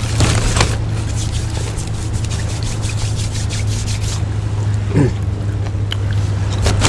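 Chewing and crunching of crispy onion rings, short crackly clicks in clusters, over a steady low engine drone.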